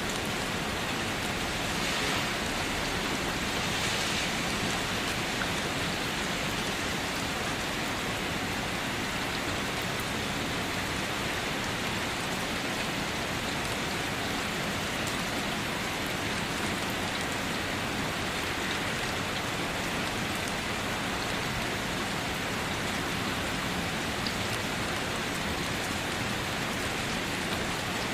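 Steady rain falling, a dense even patter of rain sounds.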